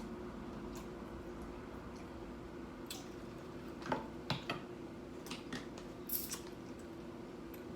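Close-up chewing of crunchy nacho tortilla chips: a string of crisp, irregular crunches, thickest in the middle of the stretch, over a faint steady hum.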